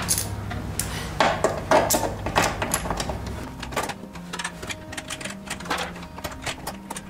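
Irregular metallic clicks and rattles from a cable connector being fitted into a knockout in the top of a metal electrical panel box.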